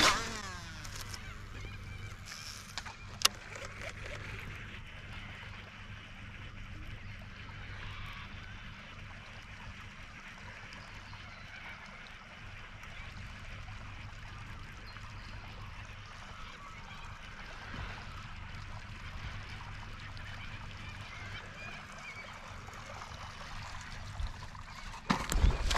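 Waterfowl honking, with other birds calling, over a faint steady low hum; a sharp click about three seconds in and a thump near the end.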